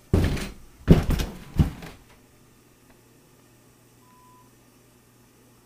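A person thrashing and falling to the floor, a few loud thumps and scuffs in the first two seconds. Then a faint low hum, with one short beep about four seconds in.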